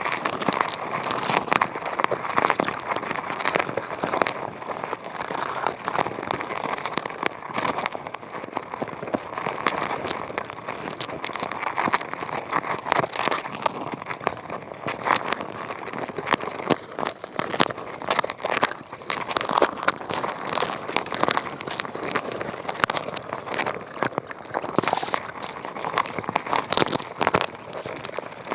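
Dense, continuous underwater crackling and clicking from crabs crawling over the trap and camera and picking at the bait.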